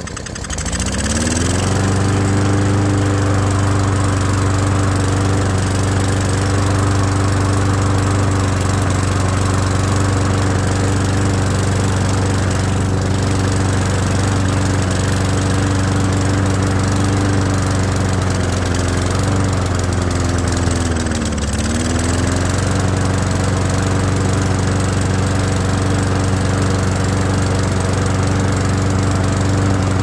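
Murray push mower's small single-cylinder engine catching and revving up to a steady run within the first two seconds, then running evenly; around twenty seconds in its speed sags briefly and recovers. It runs okay despite its carburetor having flooded, with the idle just a tiny bit low.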